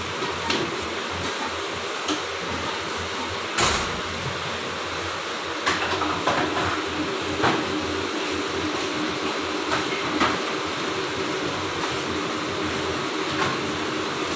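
Steady, fan-like rushing noise of a running kitchen appliance, with a few sharp knocks and clinks of cookware at the stove. The loudest knock comes about three and a half seconds in.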